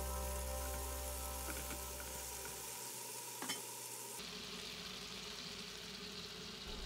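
Chopped tomatoes sizzling softly in hot mustard oil in a nonstick frying pan, stirred with a silicone spatula, as they cook down with salt toward a mushy gravy. A light knock about halfway through.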